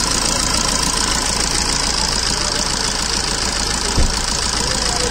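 Maruti Swift Dzire's common-rail diesel engine idling steadily just after being started with a newly fitted timing chain, replacing one that had been making noise. There is one short thump about four seconds in.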